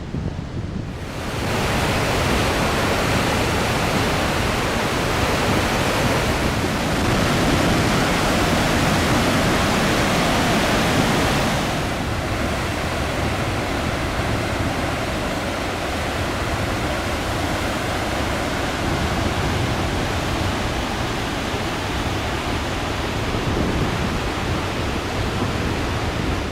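Water pouring through a dam's spillway: a steady rush of noise that swells about a second in and eases slightly after about eleven seconds.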